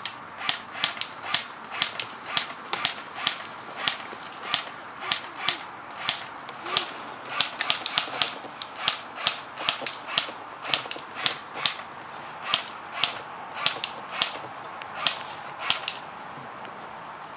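A long run of sharp, crisp clicks, about two a second and fairly evenly spaced, stopping about 16 seconds in.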